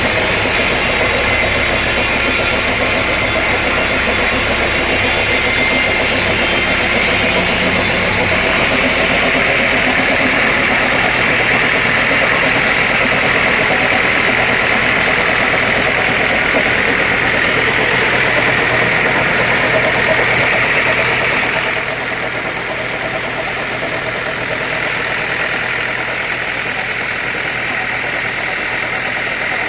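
Sawmill saw machinery running steadily with a loud mechanical drone. The sound changes character about eight seconds in and drops in level about twenty-two seconds in.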